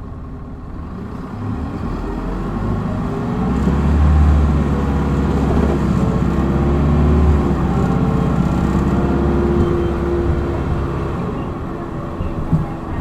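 Hino Blue Ribbon city bus engine heard from inside the cabin, accelerating hard in power mode. The engine note builds about a second in, stays loud with its pitch climbing and bending through the middle, then eases off near the end, where a short knock is heard.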